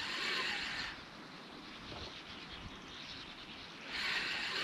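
Spinning reel cranked in two short bursts about four seconds apart, with a pause between: the step-by-step jig retrieve of a lure along the bottom.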